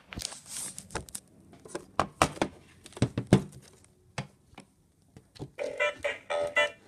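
Stiff clear plastic packaging crinkling and clicking as a Big Mouth Fish singing-fish plaque toy is handled. Near the end the toy's button is pressed and its speaker gives a few short broken pitched sounds.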